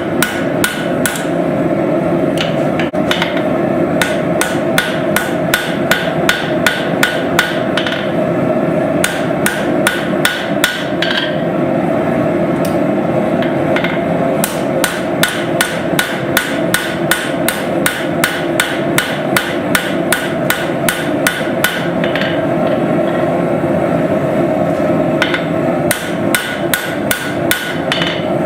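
Rhythmic hammer blows on steel during knife forging, about three strikes a second in long runs with short pauses, over a steady roar underneath.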